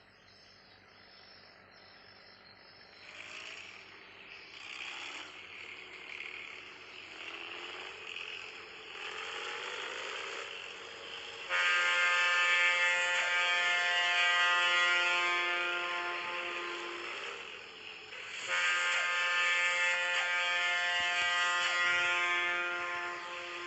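A loud, rasping, snore-like call that starts as short bursts a few seconds in and grows louder, then sounds in two long stretches of about five seconds each with a short break between them. Insects chirr faintly behind it.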